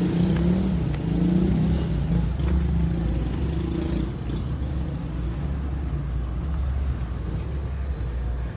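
Street traffic: a motor vehicle's engine running close by with a steady low rumble, which drops away near the end.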